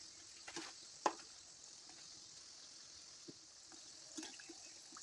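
Thekua dough cakes deep-frying in hot oil in a pan: a faint, steady sizzle, with a few light clicks, the sharpest about a second in.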